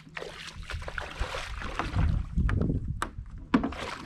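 Water sloshing and splashing around a Hobie Compass kayak as a person wades in the shallows beside it and handles the boat, loudest in the second half, with a couple of sharp knocks near the end.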